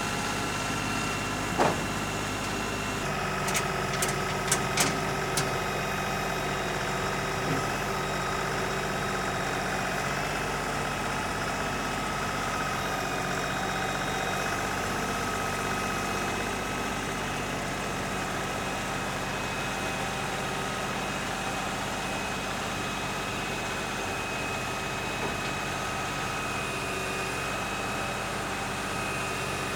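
An engine running steadily at an even speed, with a few sharp clicks or knocks about two to five seconds in.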